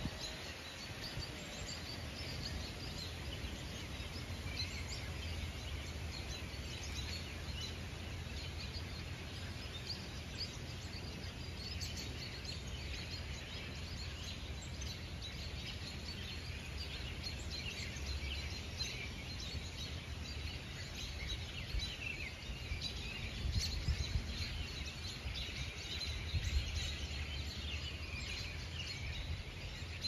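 A migrating flock of birds calling from the trees: a continual scatter of short, high chips and twitters, busier in some stretches than others, over a steady low rumble.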